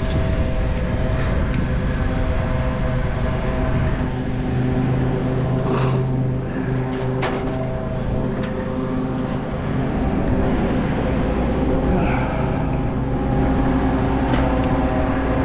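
Engine of a tracked machine running steadily at constant speed, with a few short clicks and knocks over it.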